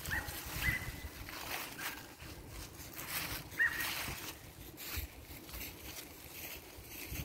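Dry fallen leaves rustling and crackling under a small dog's wheelchair wheels and paws as it walks through leaf litter, with a few short high chirps in the first half.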